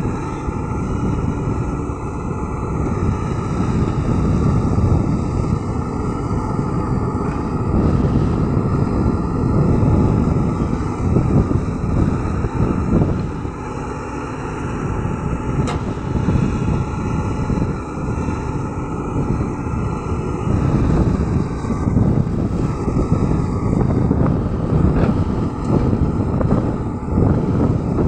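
LiuGong crawler excavator's diesel engine running under load as it digs and swings soil into a dump truck, the sound swelling and easing every few seconds with the work.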